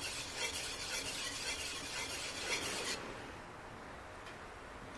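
A Master Kuo G-5 clad-steel fish knife is stroked back and forth on a wet Naniwa 600-grit 'Bubble Gum' water stone, making a gritty wet rasp that stops suddenly about three seconds in. At this stage the 600 grit is taking out the belt-grinder scratches on the bevel.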